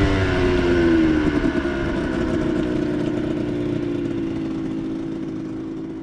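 Aprilia MX125 single-cylinder two-stroke engine coming off the throttle, its pitch dropping and settling into a steady idle that grows gradually quieter.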